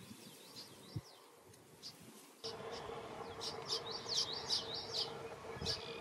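Red-winged blackbird fledgling begging: a quick run of short, high chirps starting about two and a half seconds in, over a steady low hum. Before that, only a few faint chirps and a soft thump about a second in.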